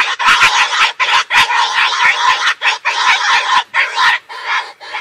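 Recording of a sow in heat grunting and squealing in a fast, unbroken run of short calls with a few brief pauses: the estrus call played from a speaker as a lure for boar hunting.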